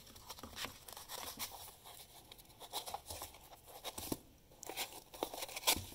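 Scissors cutting a thin strip of cardboard, and the cardboard being handled. It comes as a quiet scattering of short crunches, snips and rustles.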